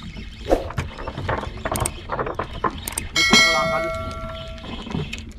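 Subscribe-button animation sound effect: a few sharp clicks, then a bright bell chime about three seconds in that rings on and fades out over about a second and a half.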